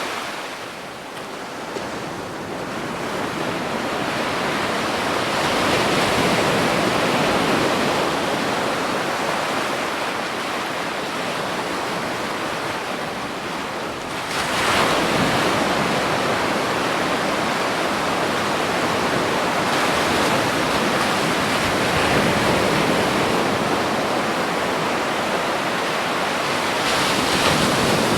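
Ocean waves breaking on a beach: a steady wash of surf that swells and eases, with a sudden surge of a breaking wave about halfway through.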